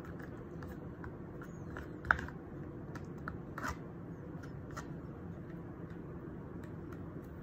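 Metal spoon stirring yogurt in a plastic cup: light scrapes and clicks of the spoon against the cup, with one sharper click about two seconds in.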